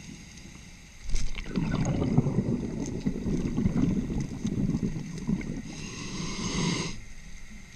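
Scuba diver breathing out through a regulator underwater: a rush of exhaled bubbles starts about a second in and bubbles for about six seconds, with a brief hiss near the end before it stops.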